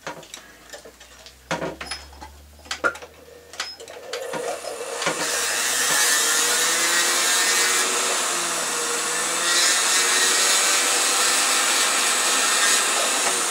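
A few light clicks of small metal parts being handled, then about four seconds in a jeweler's rotary handpiece spins up and runs steadily with a high whir, grinding a small metal suspension loop for a cross to shape.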